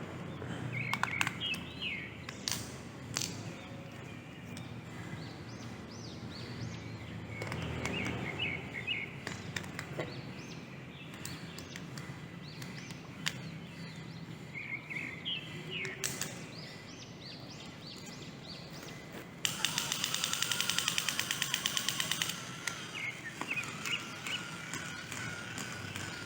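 Birds chirping in short bursts against outdoor background noise, with scattered light clicks. About three quarters of the way through comes a loud rapid rattle lasting roughly three seconds, the loudest sound here, followed by a thin wavering tone.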